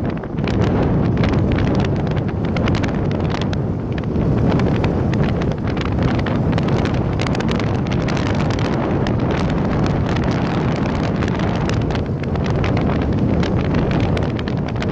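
Wind blowing hard across the microphone: a steady low rumble with frequent crackles.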